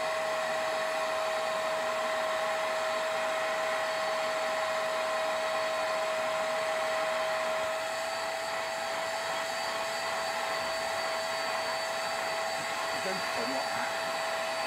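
Vax SpotWash carpet cleaner's suction motor running steadily with a high whine while its hand tool is worked over stair carpet. The sound drops slightly about eight seconds in.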